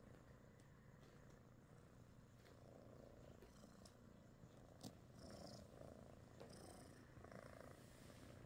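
British Shorthair kitten purring quietly, a steady low rumble, with one short click about five seconds in.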